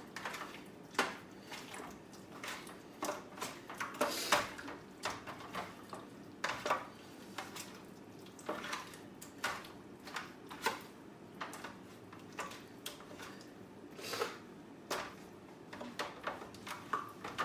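Kitchen clatter: dishes, pans and utensils being handled, a string of irregular clicks and knocks.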